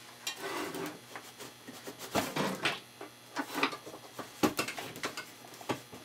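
Irregular knocks, clicks and rustling from a power cord being handled and plugged in, with the sharpest knock about four and a half seconds in.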